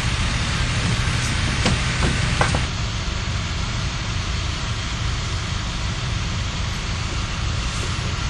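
Steady low engine rumble with a hiss over it, with a few sharp clicks in the first three seconds; it gets slightly quieter about two and a half seconds in.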